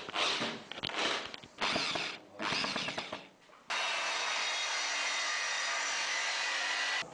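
Power tool work: a few short, noisy bursts, then about halfway in a steady motor run for a little over three seconds that starts and stops abruptly.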